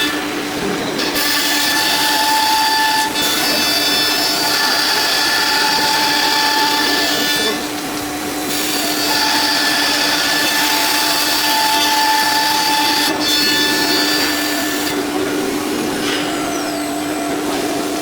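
Nesting CNC router spindle whining steadily as it cuts a wood panel, the cutting noise dipping briefly a few times as the tool lifts or changes direction.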